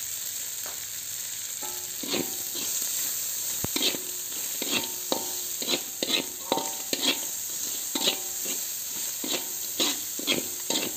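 Chopped green chillies, shallots and garlic sizzling in hot oil in a wok, with a metal spatula scraping and clanking against the pan as they are stir-fried. The stirring strokes begin about two seconds in and come quickly and unevenly, some making the wok ring briefly.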